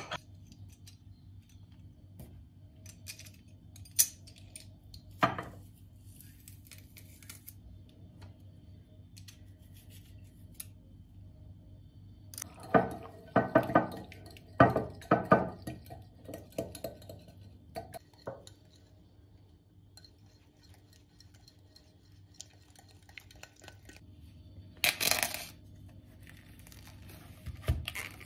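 A utensil scraping and clinking against a glass bowl while food is stirred, with a run of quick strokes about halfway through. Scattered clicks and a short rustling burst near the end.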